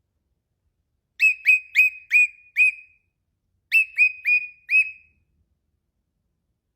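Cockatiel giving short, sharp whistled notes in two quick bursts, five then four, about three a second. These are the bark-like calls its owner calls barking.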